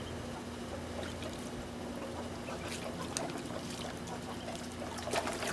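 Faint water splashing and trickling in a shallow water dish as a duck moves about in it, with a few small sharp ticks near the end.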